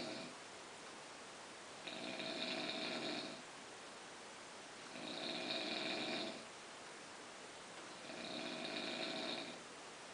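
Snoring in sleep, a long snore every three seconds or so: the tail of one at the start, then three full snores, each lasting over a second.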